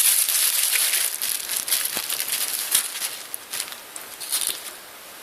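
Plastic wrapping crinkling and rustling as the new camcorder is handled and unwrapped, with many small crackles, loudest at first and fading off.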